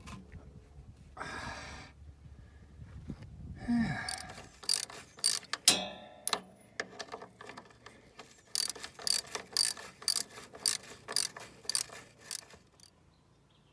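Hand ratchet wrench clicking in quick runs of sharp clicks as bolts are worked down, after a couple of brief rustling scrapes of parts being handled.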